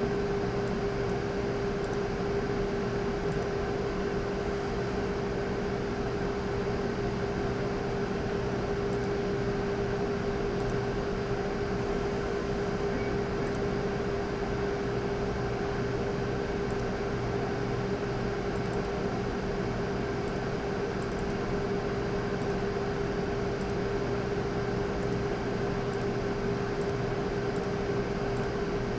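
Steady background hum with one constant mid-pitched tone and a few fainter lower ones, unchanging throughout.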